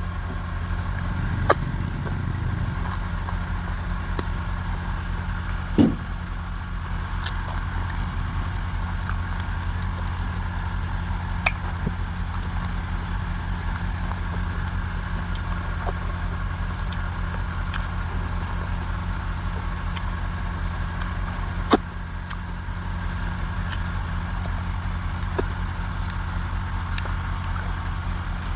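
A steady low machine hum with a few sharp clicks scattered through it.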